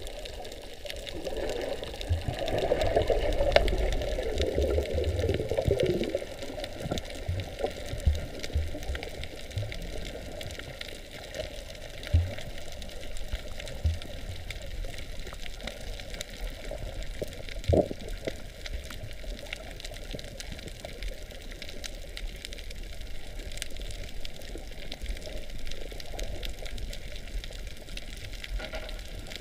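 Muffled underwater water noise picked up by a camera held below the surface, with a louder rush of moving water a few seconds in and a few short low knocks later on.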